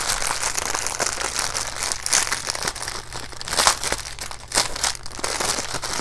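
Packaging crinkling loudly as its glued flap, stuck to itself, is pulled apart, with sharper crackles about two, three and a half and four and a half seconds in.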